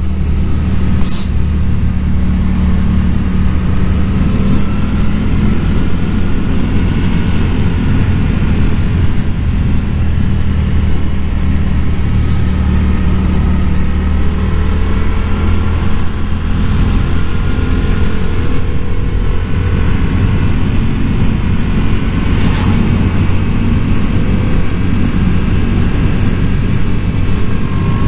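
A Yamaha motorcycle's engine running while the bike is ridden at a steady pace, its pitch rising and falling gently as the throttle changes.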